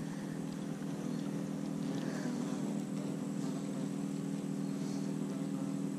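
An engine running steadily, a constant hum that holds one pitch without revving.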